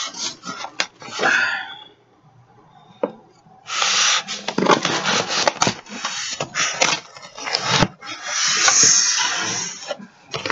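Corrugated cardboard mailer being torn open by hand, its pull-tab tear strip ripping through the card, with rubbing and scraping as the flaps are worked apart. There is a short lull about two seconds in, then longer spells of tearing and scraping.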